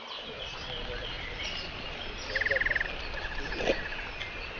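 Birds singing in waterside trees: scattered chirps and whistles, with a fast buzzing trill about two seconds in, followed by a fainter one. A low rumble runs underneath.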